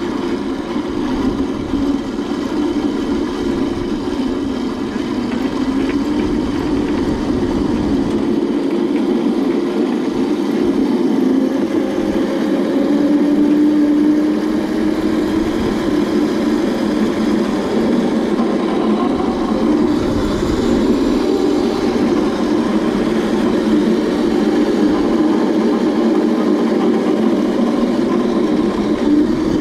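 Razor Crazy Cart electric drift kart driving over asphalt, heard from on the cart: a steady hum of its motor and wheels that goes on without a break.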